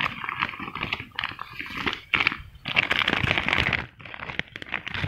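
Thin plastic sack crinkling and rustling as it is handled and pulled open, in several bursts, the longest about three seconds in.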